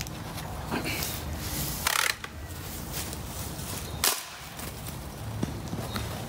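BazooK-9 tennis-ball launcher firing: its released rod strikes the tennis ball with one sharp crack about four seconds in. A shorter, noisier rattle comes about two seconds in as the launcher is handled.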